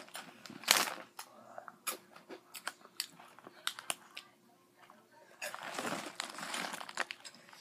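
Crunchy Flamin' Hot Cheetos being bitten and chewed close to the microphone: a loud crunch about a second in, then scattered sharp crunches. Near the end comes a stretch of snack-bag crinkling as the bag is handled.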